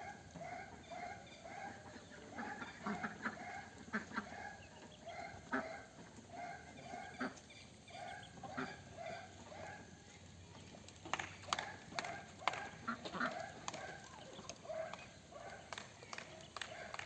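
A flock of ducks calling over and over in short, quick calls, with a run of sharp clicks or taps about two-thirds of the way through.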